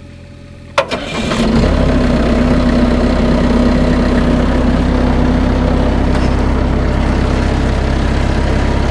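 A compact construction machine's diesel engine is started: a sharp click about a second in, a brief crank, then it catches and runs steadily and loudly at an even idle.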